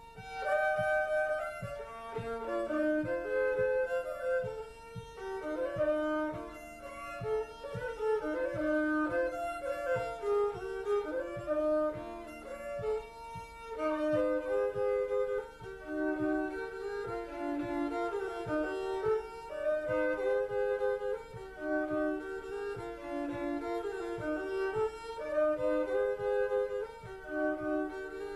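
Fiddle music: a lively tune of many quick notes on violin, starting at the beginning, over a soft steady beat.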